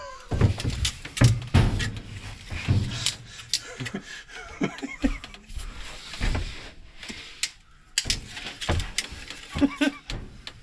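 Irregular knocks, clicks and low thumps with some rustling as a dryer vent tube is handled and worked onto its exhaust fitting.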